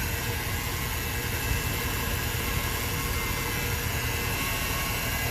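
Late-1990s pickup truck's engine idling steadily, running again after a fuel pump relay fault.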